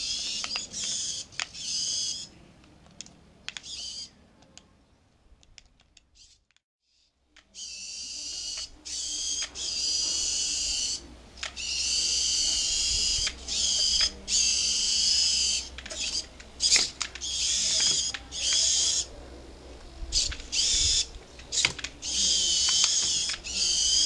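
Small electric drive motors of a 3D-printed four-track robot whining in stop-start stretches as it is driven, mixed with sharp clicks and knocks of its plastic tracks on tiled stair steps. The sound drops to near silence for a couple of seconds about five seconds in.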